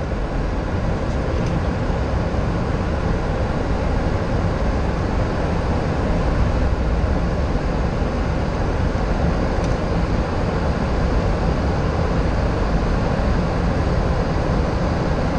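Steady rushing airflow and engine noise inside a Boeing 737-800 cockpit on short final approach, with a low rumble underneath and no distinct impacts.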